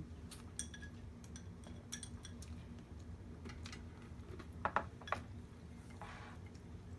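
Scattered light clicks and taps of eating utensils against dishes during a meal, with a louder pair of clicks about five seconds in, over a low steady hum.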